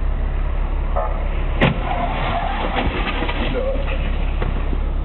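Steady low hum of an idling car, picked up inside the cabin by a dashcam. There is one sharp click about one and a half seconds in.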